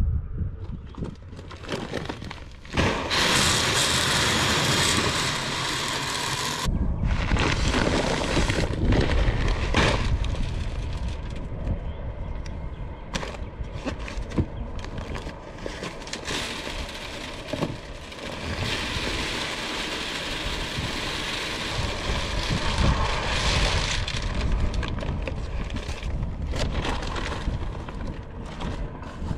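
Pelleted protein deer feed poured from sacks into a rotomolded plastic gravity feeder's hopper. A steady rush of feed cuts off abruptly about six seconds in, then more pouring follows with many small clicks and knocks.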